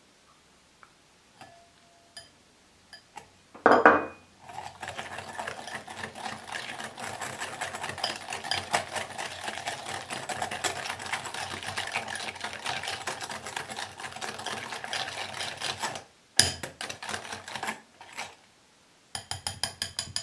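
Wire balloon whisk beating beaten egg into creamed butter and sugar in a glass bowl, the wires clicking and scraping rapidly against the glass. A knock comes about four seconds in, then steady fast whisking for about twelve seconds. It stops briefly, and short bursts of whisk strokes follow near the end.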